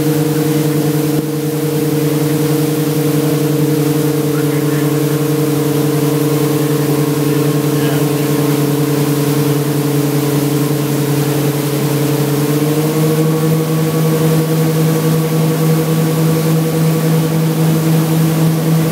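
Motorboat engine running steadily at towing speed while pulling an inflatable tube, under a steady rush of noise. Its pitch steps up slightly about two-thirds of the way through, as the engine speeds up a little.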